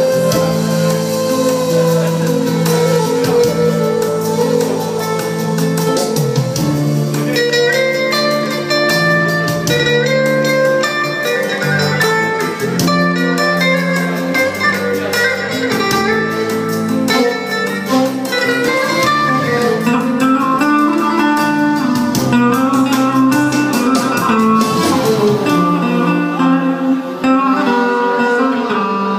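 Instrumental Turkish folk music played live by a band, led by a plucked string instrument over held low notes.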